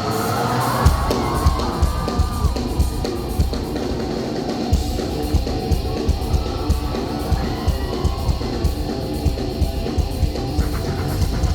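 Live hard-rock band playing: distorted electric guitars over a drum kit keeping a steady, regular beat.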